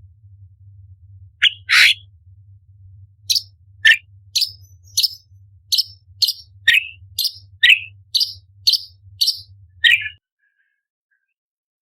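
Orange-bellied leafbird singing: a two-part call, then a quick run of short sharp chirps and whistles, about two a second, some high and thin, some sliding down in pitch. The song and background cut off abruptly about ten seconds in.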